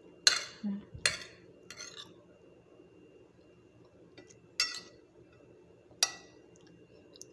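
A metal utensil clinking against a plate while a chopped egg salad is stirred: a few separate sharp clinks, three close together in the first two seconds, then single ones about four and a half and six seconds in.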